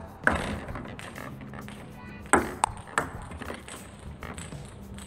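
Celluloid table tennis ball clicking as it bounces on the table and is struck with forehand drives: a handful of sharp clicks at irregular spacing, the loudest about a quarter second in and a quick cluster around halfway.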